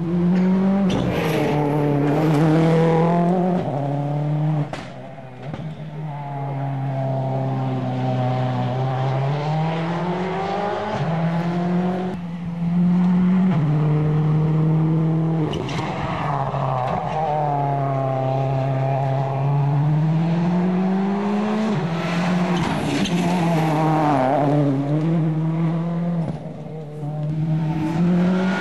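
Ford Focus RS WRC rally car's turbocharged four-cylinder engine driven hard, its pitch climbing and then dropping back again and again as it shifts up through the gears, with slower falling stretches as it brakes and shifts down.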